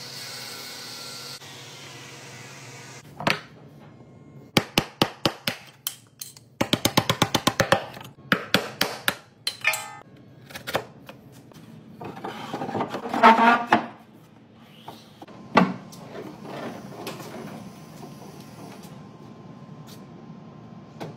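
Shop sounds from woodworking. A steady machine hiss at first, then a hammer tapping on wood in sharp separate strikes, including a fast even run of taps. A louder noisy stretch near the middle is followed by a few scattered knocks.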